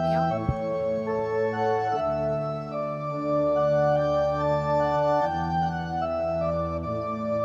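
Church organ playing slow, held chords of the communion hymn, the chords changing every second or two. A short click about half a second in.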